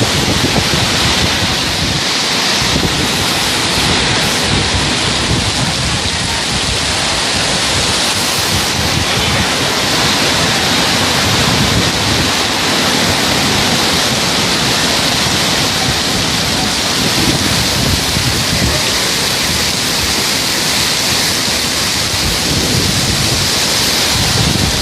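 Heavy rain in a thunderstorm: a loud, steady rush of downpour with wind gusting underneath.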